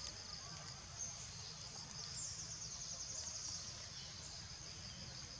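A steady high-pitched chorus of insects, with a faster pulsing trill standing out for a second or two near the middle.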